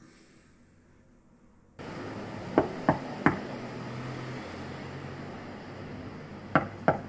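A fist knocking on a front door: three quick knocks about two and a half seconds in, then two more about three seconds later, over a steady background with a low hum. The first couple of seconds are near silence.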